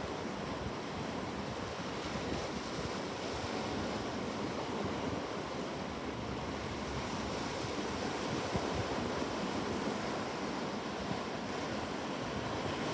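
Ocean surf washing on a shore, an even, continuous rush of waves with no single breaker standing out.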